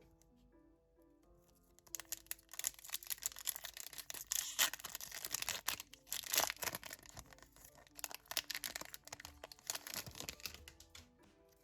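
Foil booster pack wrapper being torn open and crinkled, a dense crackle from about two seconds in until near the end, over soft background piano music.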